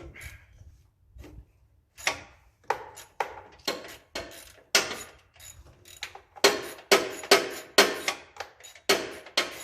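Socket ratchet clicking as a 9/16 bolt is worked loose, in quick repeated strokes. The clicks start about two seconds in and get louder and closer together near the end.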